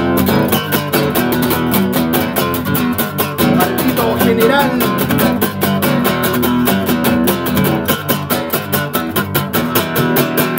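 Acoustic guitar strummed in quick, even strokes, the chords changing as it goes.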